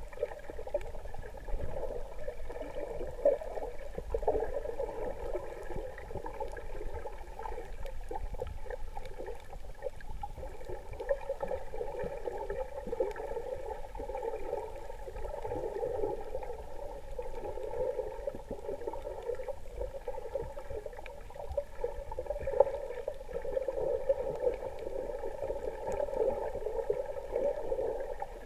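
Muffled, steady water noise picked up by a camera held underwater, with a few faint clicks and one louder tick near the end.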